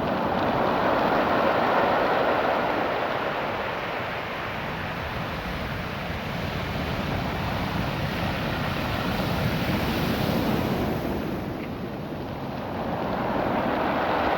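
Ocean surf washing up and back over a beach of small rounded stones, a continuous rushing that swells and eases twice as waves come in and draw back.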